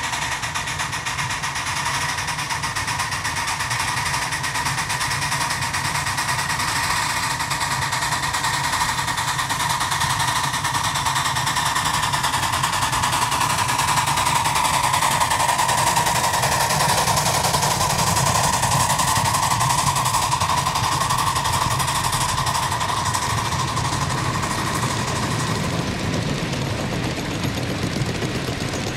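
Live steam scale model of the Union Pacific 4-8-4 Northern UP-828 working hard up a heavy grade on wet rail, its exhaust beating in rapid chuffs, loudest as it passes about halfway through, with a steady high whine underneath. Near the end its train of riding cars rolls by.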